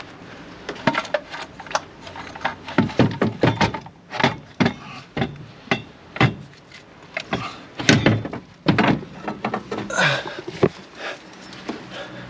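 Irregular knocks and clunks of metal on metal as the Volkswagen Golf Mk6 TDI's manual gearbox is worked free from the engine and lowered by hand.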